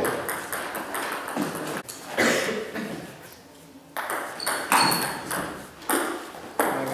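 A table tennis ball clicking sharply off the paddles and table during play, with a quieter pause midway. A brief high squeak comes just after the pause.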